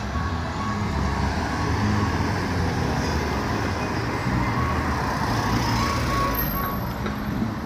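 Heavy wind buffeting on the microphone, a constant rumble, with a band's music faintly audible underneath.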